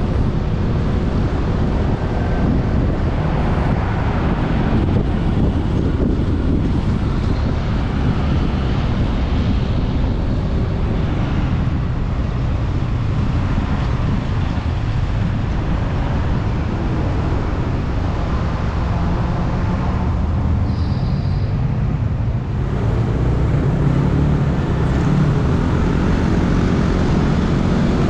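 Ride noise on a moving motorcycle in city traffic: a steady low rumble of wind on the microphone, mixed with the motorcycle's engine and passing traffic.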